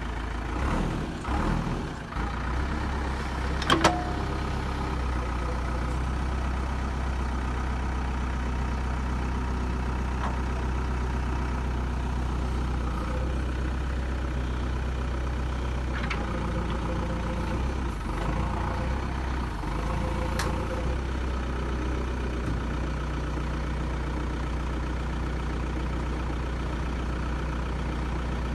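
Heavy diesel engine running steadily at a low, even pitch, with a few sharp metallic knocks, the loudest about four seconds in.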